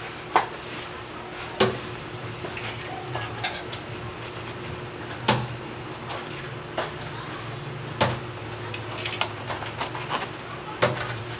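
Eggs being cracked open by hand into flour in a stainless-steel dough mixer bowl: a sharp knock every few seconds, about five in all, over a steady low hum.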